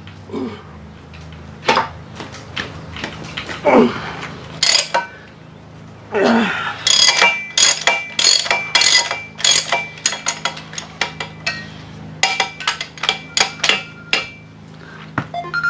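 Steel hand tools clinking and clattering: a socket, extension and wrench knocking against the steel shaft and pulley hub and set down on the shop floor mat, with sharp metallic clinks that ring briefly, coming thick and fast in the second half. Just before the end a phone starts ringing with a steady tone.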